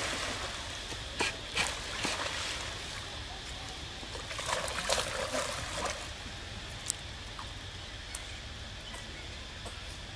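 Water splashing and sloshing as monkeys swim in a pool: a few short splashes in the first two seconds and a longer burst of splashing around the middle, over a steady background hiss.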